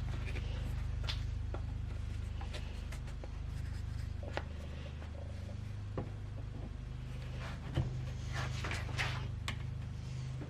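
A steady low hum runs throughout, with scattered light clicks and taps over it, several close together near the end.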